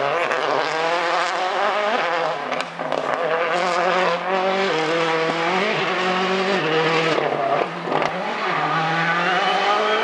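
World Rally Car's turbocharged four-cylinder engine accelerating hard through the gears. Its note climbs and drops back several times as it shifts up, with a couple of brief lifts off the throttle.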